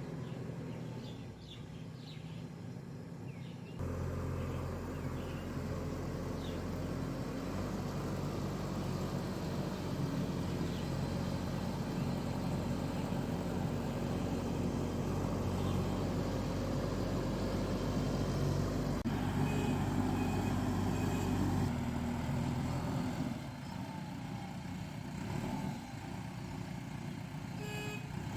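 Diesel engine of a JCB excavator working under load, its hum stepping up about four seconds in and easing off a few seconds before the end. A reversing alarm beeps near the end.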